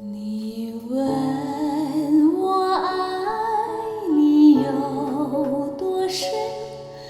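Recorded music played back through an Elekit TU-8900 2A3 valve amplifier and speakers: a singing voice with instrumental accompaniment that joins about a second in.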